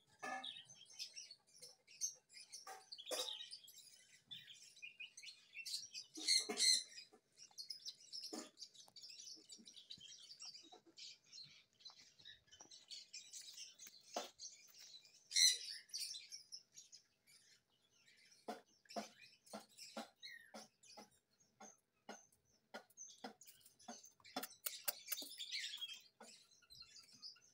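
Small birds chirping steadily. In the second half a run of soft ticks comes at about two or three a second.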